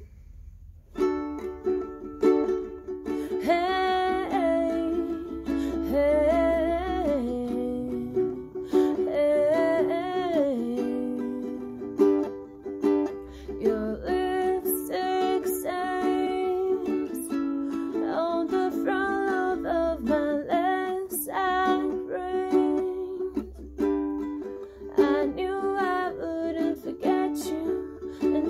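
Ukulele strummed in steady chords, starting about a second in, with a high voice singing a melody over it.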